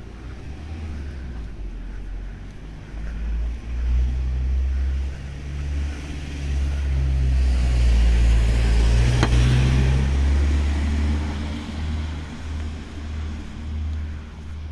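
A car passing along the street: a low engine rumble and tyre hiss swell, loudest about nine seconds in, then fade.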